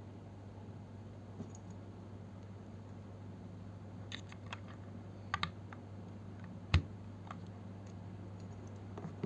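Scattered clicks and light taps from handling the Vortex VX5 Pro aluminium-case mechanical keyboard, with one sharper knock about seven seconds in, over a steady low hum.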